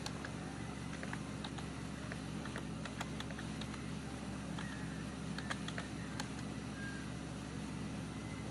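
Irregular keystrokes on a computer keyboard, a few clicks at a time, over a steady low hum.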